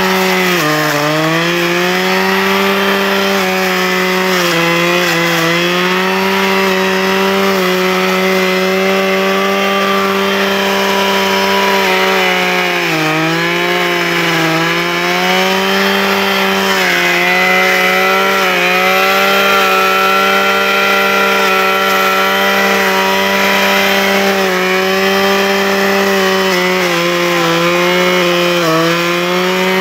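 Husqvarna 535 RJ brushcutter's two-stroke engine running at high revs, its pitch dipping briefly several times as the Brushdestructor blade bogs into brush, then picking back up.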